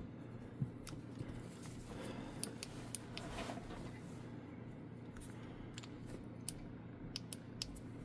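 Faint small clicks and taps of hands handling a handheld cordless paint shaker with a paint bottle held in by elastic bands, over a low steady hum.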